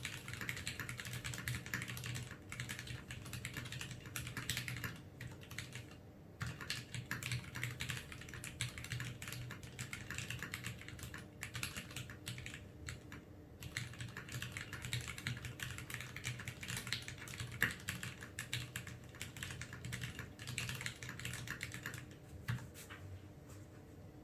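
Typing on a TX1800 v2 mechanical keyboard with lubed, retooled Cherry MX Black linear switches and ABS keycaps: a fast, steady run of keystroke clacks. There are short pauses about 6 and 13 seconds in, and it thins to a few scattered keystrokes near the end.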